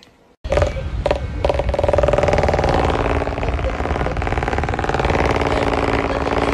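Electric pedestal fan running, a steady mechanical hum with a fast, fine rattle. It starts abruptly about half a second in.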